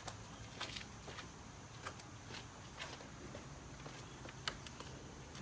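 Faint, scattered light clicks and taps: a nail and hammer being handled and set in place against wood.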